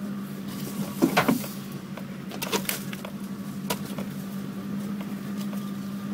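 Nissan Navara's engine running at a steady low speed, heard from inside the cab as it creeps along a rough bush track, with a few sharp knocks and clatters from the vehicle jolting over the ground; the loudest come about a second in.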